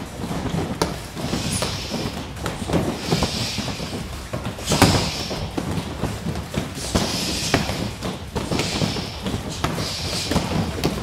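Punches and strikes landing on padded kick shields: a fast, irregular series of dull thumps and slaps from several pairs at once, with one harder hit about five seconds in. Short hissing sounds come every second or so between the hits.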